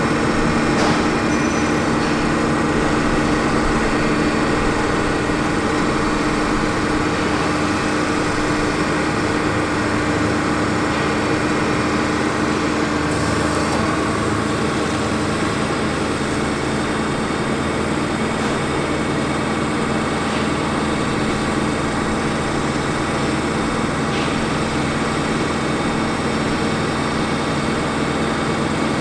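Ford 6.4L Power Stroke V8 diesel running steadily at idle while it powers the hydraulics of the ETI articulating bucket boom as the boom is operated. A steady drone with a humming tone, part of which fades out about halfway through.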